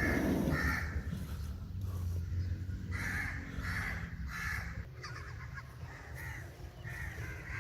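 Crows cawing in short runs of calls about half a second apart.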